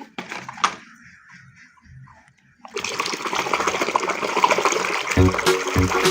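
A few faint clicks from toys being handled, then, about three seconds in, water starts running and gushes steadily as the toys are rinsed.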